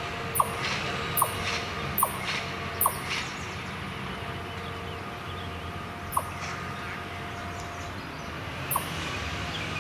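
A train rolling past with a steady low rumble and sharp clicks from its wheels on the track. The clicks come evenly, about one every 0.8 seconds, for the first three seconds, then only twice more, further apart.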